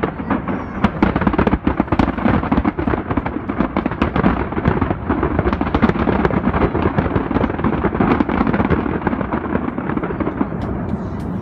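A dense barrage of aerial firework shells bursting, many bangs overlapping into a continuous rumble with sharp cracks through it, easing slightly near the end.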